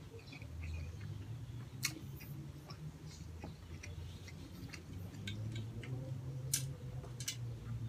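Close-miked eating sounds: braised pork hock chewed with the mouth closed, giving scattered soft wet clicks and lip smacks over a low steady hum. Near the end come sharper clicks of swallowing as juice is drunk from a glass mug.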